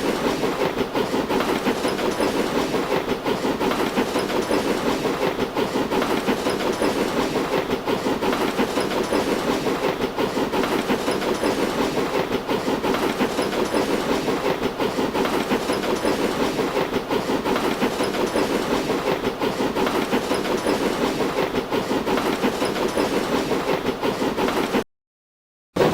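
Sound effect of a moving train: a steady, rhythmic rail clatter that runs on evenly, then cuts off abruptly to silence about a second before the end.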